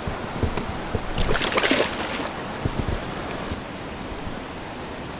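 A short burst of splashing about a second in, as a released blue catfish kicks free of the hand at the side of a kayak, over steady wind and water noise.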